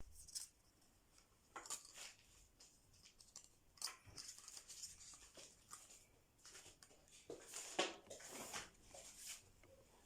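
Near silence, broken by scattered faint clicks and rustles, a little louder about four and eight seconds in.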